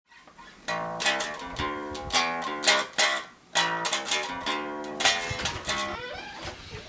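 Intro music of strummed chords on a plucked string instrument, in a quick rhythm that dies away near the end.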